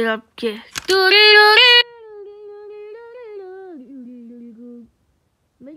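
A woman's voice singing a loud wordless note about a second in, then humming it on softly, dropping lower in pitch near the end before stopping.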